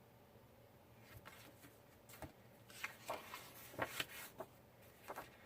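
Quiet paper handling: scattered soft rustles and light taps as sheets of scrapbook paper are shifted and set down, growing busier toward the end.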